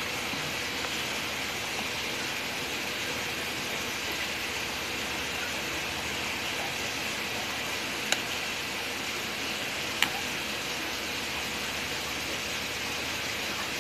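Steady hiss with two sharp clicks, about eight and ten seconds in, of a ladle knocking against the metal soup pot.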